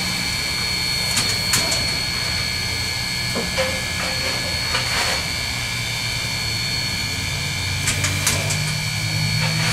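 Queensland Rail BB18¼ class steam locomotive standing at the platform: a steady high whine over a low hum, with a few sharp clicks about a second in and again near the end.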